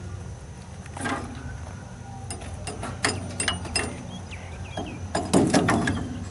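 Sharp metallic clicks and clanks, as of work on machine parts, over a steady low hum. The clanking grows denser and loudest about five seconds in.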